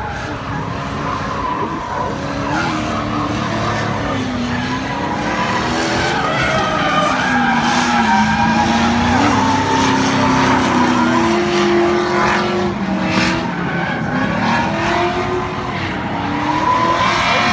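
Drift car's engine revving, its pitch rising and falling again and again as the car slides through the course, with tyres squealing and skidding.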